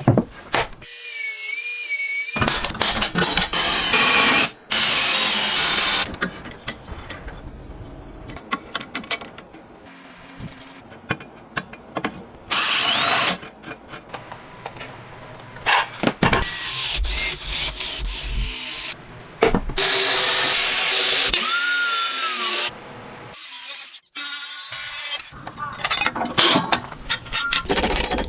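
Power tools used on wood, mainly a drill, running in many short bursts that start and stop abruptly, as in a quick-cut build sequence.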